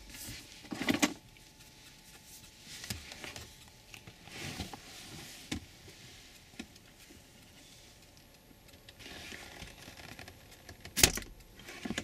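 Small clicks and rustling of hands and a tool working at the shift knob's base to pull out its thin retaining pin, with a sharper click about eleven seconds in.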